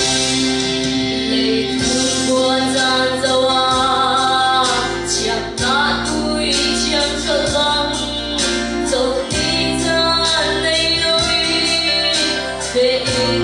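A woman singing through a handheld microphone over an instrumental backing of held chords. The voice comes in about two seconds in.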